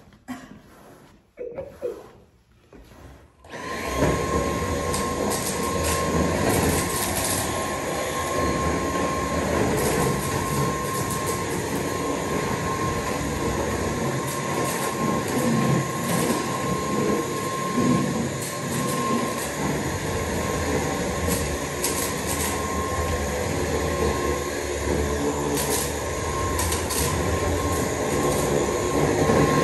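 Stick vacuum cleaner running steadily, a constant noise with a high whine in it, coming in about three and a half seconds in after a few faint knocks.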